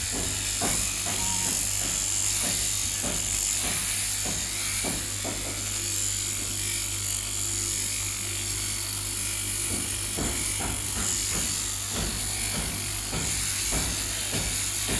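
Electric sheep-shearing handpiece running steadily with a buzzing hum as its comb and cutter shear through the fleece, with scattered light clicks.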